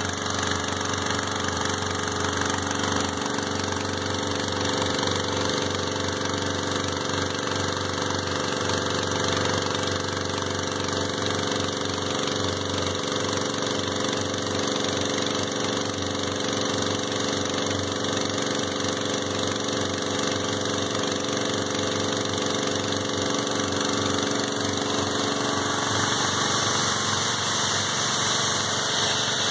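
Karcher HDS 801B hot-water pressure washer running steadily on its petrol engine, with the hiss of the high-pressure water jet from the lance.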